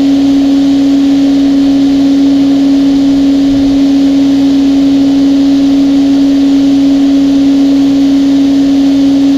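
Ivation 2200 PSI electric pressure washer running steadily, its motor and pump giving a loud, even hum over a hiss of noise.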